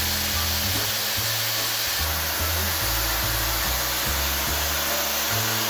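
Background music with a stepping bass line laid over a steady rushing hiss from a power tool working the rusted steel of a car's axle beam.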